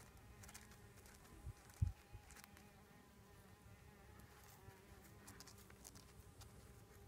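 Faint, steady buzzing of a flying insect, with light scratchy ticks scattered through it and a single low thump about two seconds in.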